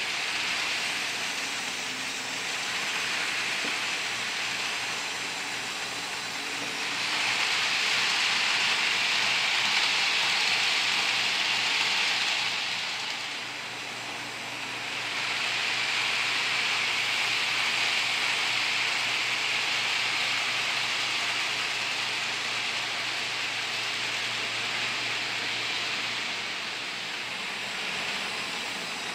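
HO scale Life-Like GP38 model locomotive and its freight cars running on the layout track: a steady whirring rumble of motor and wheels on rail. It swells louder twice, about a quarter of the way in and again through the middle, with a brief dip between.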